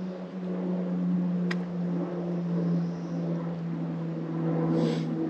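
Bow-mounted electric trolling motor running with a steady hum, with a single sharp click about a second and a half in and a short hiss near the end.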